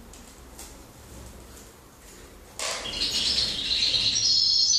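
Aviary finches chirping faintly at first; about two and a half seconds in, a much louder run of high twittering song starts close by and carries on with quick rising notes.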